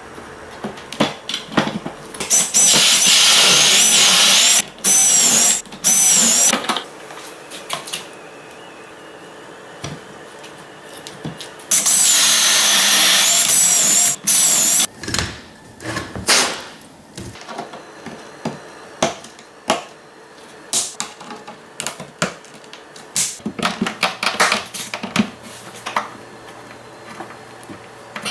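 A handheld power tool runs in two bursts of about four and three seconds, its high whine wavering as the load changes. Scattered knocks and clicks fill the gaps.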